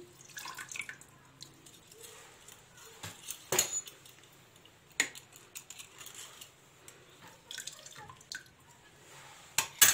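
Lemon being squeezed with a hand-held metal lemon press over a jug of brine: scattered clicks and taps from the press, with juice dripping into the liquid.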